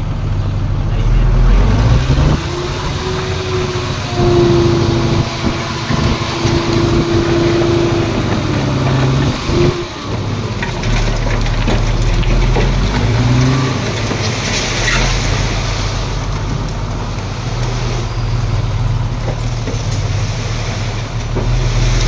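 Diesel engines of heavy earthmoving machinery running, the engine speed stepping up and down as they work. A steady whine sits over them from about two and a half to nine and a half seconds in.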